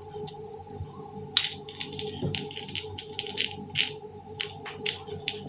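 Small plastic ironing beads being picked over and set onto a pegboard by hand: a string of short, irregular light scratches and rattles.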